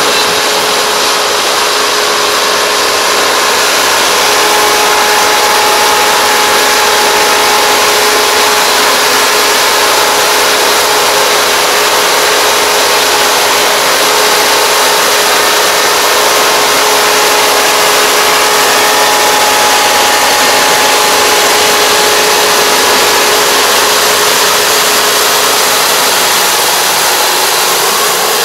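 Kubota four-row combine harvester running while it cuts rice: a loud, steady engine and machinery drone with a constant whine over it.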